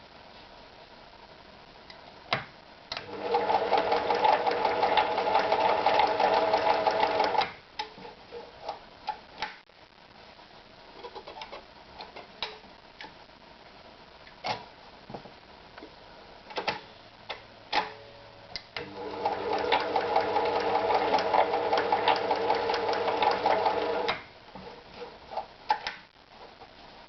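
Privileg Super Automatik TopStar 796 sewing machine running in two stretches of about four and five seconds, about ten seconds apart, with scattered single clicks and knocks between the runs.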